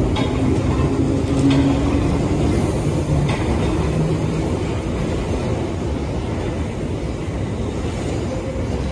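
London Underground Bakerloo line 1972-stock tube train moving along the platform: a steady rumble of wheels on rail. A low motor hum fades out about halfway through, and a few faint clicks come from wheels over rail joints.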